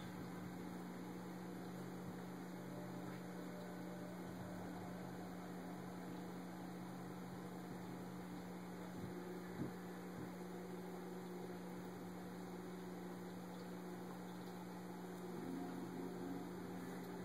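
Steady low electrical hum over a faint hiss, with a single soft tick about ten seconds in.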